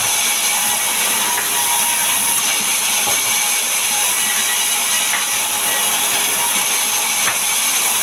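A sawmill band saw runs steadily with a high-pitched whine while a timber slab is pushed through the blade, cutting off its bark edge.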